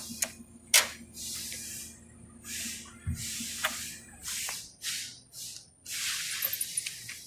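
Forklift hydraulics hissing in a string of short bursts as the mast and forks are worked, with a sharp click a little under a second in and a low steady hum that fades out midway.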